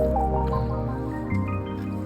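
Background music: a melodic track with sustained bass notes and plucked or mallet-like notes.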